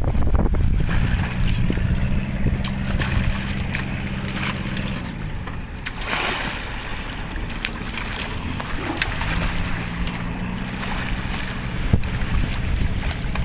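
Fishing boat's engine running, with wind buffeting the microphone and water noise. The engine's hum fades about five seconds in and comes back about nine seconds in.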